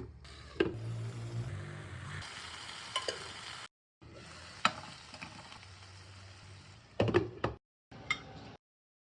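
Food sizzling in a frying pan while being stirred, with sharp clinks and knocks of a utensil against the pan. It comes in three short stretches separated by brief breaks.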